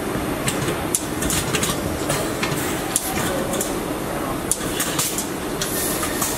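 Car-body assembly line machinery: a steady industrial din with frequent sharp metallic clicks and clanks and a couple of short hisses.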